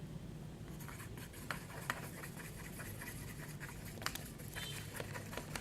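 Light scraping and scattered small clicks and taps of slime ingredients being mixed in a container: glue with colouring being added and stirred.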